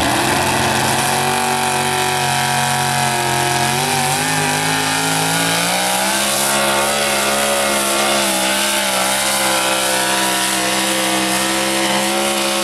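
Modified four-wheel-drive pulling truck of about 1,600 horsepower running flat out under load while dragging a weight-transfer sled. The engine holds at high revs, dips slightly about four seconds in, climbs again about six seconds in and then holds steady.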